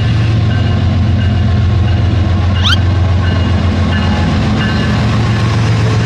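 Steady train running sound: a continuous low hum with a quick rising sweep a little before the middle.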